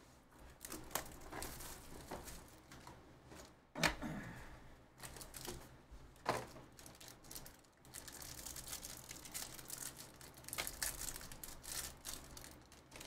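A plastic-wrapped trading card pack being torn open and crinkled, with cards handled on the table. There is a sharp knock about four seconds in, and the crinkling is densest near the end.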